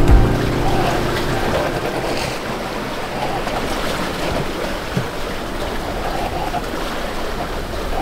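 Steady rush of sea and wind aboard a sailboat under way, with wind on the microphone.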